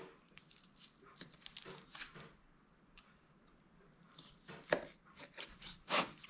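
Knife cutting through a raw chicken thigh along the bone: faint scrapes and short clicks, a little louder toward the end.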